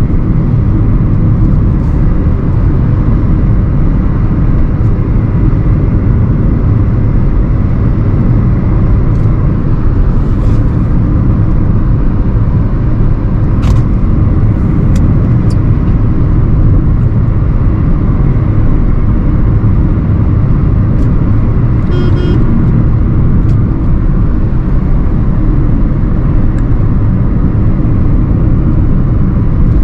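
A 2009 Hyundai i20 with the 1248 cc four-cylinder petrol engine, driving along at an even pace: a steady low rumble of engine and road noise. A few faint clicks and a short high-pitched sound about three quarters of the way through break in over it.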